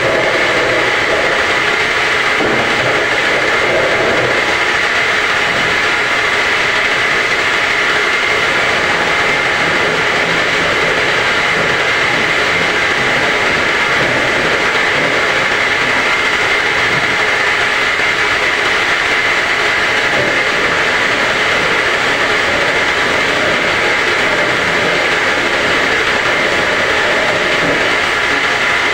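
Home-assembled semi-automatic round water-gallon washing machine running, a loud, steady mechanical noise that holds without change.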